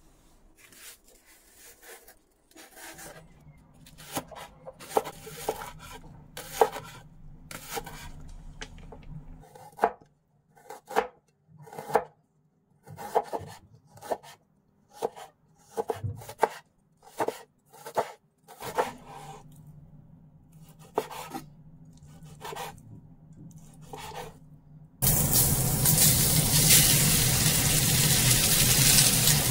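Chef's knife cutting ginger on a wooden cutting board, single strokes at an uneven pace with pauses between runs. Near the end, diced raw pork hits a hot frying pan and a loud, steady sizzle starts suddenly.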